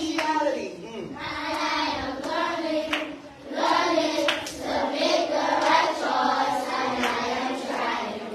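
A group of children singing their school song together, with hand claps among the singing.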